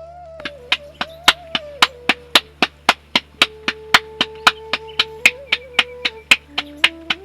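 Background music: a single-line melody of held notes stepping between pitches over a steady clicking beat of about four beats a second.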